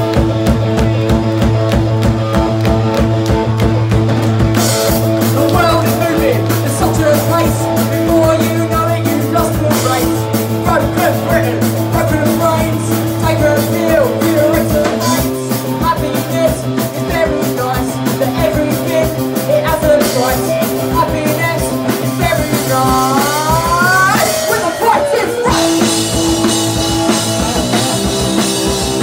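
Punk rock band playing live: driving drum kit and loud guitar chords, with a sung vocal over them.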